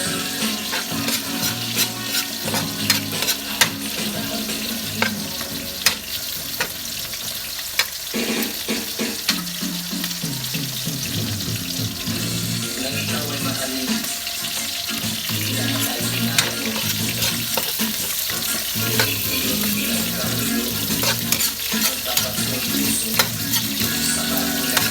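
Food sizzling as it fries in a pan, with a utensil stirring it and clicking against the pan now and then.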